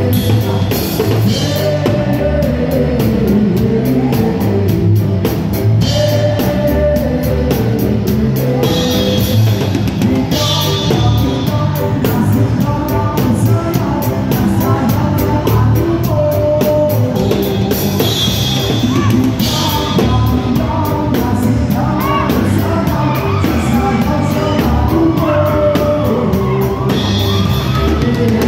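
Live band music: a drum kit keeping a steady beat under a singer's voice.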